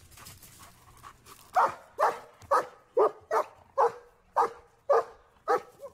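German shepherd search-and-rescue dog barking repeatedly, about two barks a second, about ten in all, starting about a second and a half in: the bark alert given on finding a person lying hidden.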